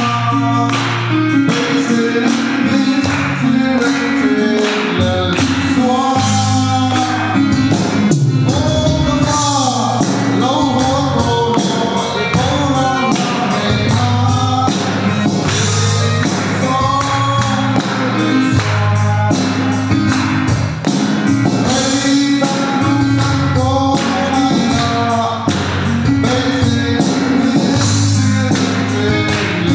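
A man singing solo through a handheld microphone over a recorded backing track with a steady beat and bass.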